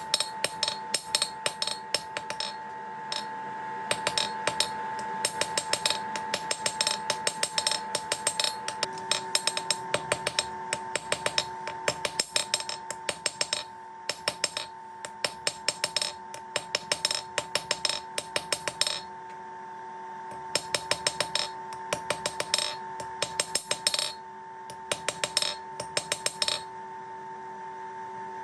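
Hammer striking hot metal on an anvil in quick runs of blows with short pauses between them, over a steady ringing tone.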